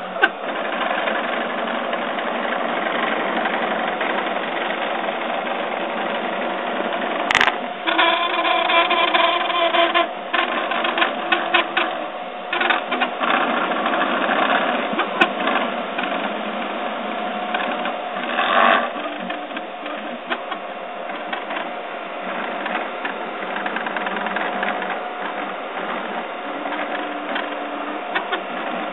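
UP 3D printer's stepper motors whining and buzzing as the extruder head moves while printing in PLA, the pitch shifting with each move. A single sharp knock comes about seven seconds in.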